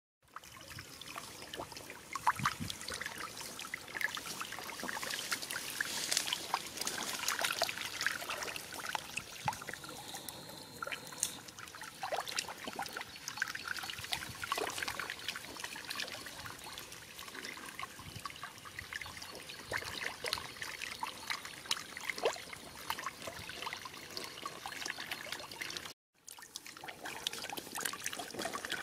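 Shallow canal water trickling and splashing as a crowd of fish thrashes in it, with many quick small splashes. The sound breaks off briefly near the end.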